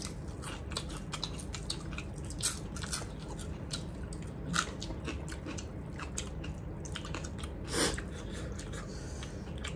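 Two people eating by hand close to the microphone, chewing mouthfuls of rice and fried pumpkin with dry buffalo meat. There are steady wet chewing and mouth clicks throughout, with a few brief louder hisses, the loudest near the end.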